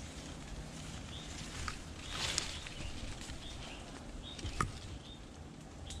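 Footsteps and rustling in undergrowth, with one sharp click about four and a half seconds in.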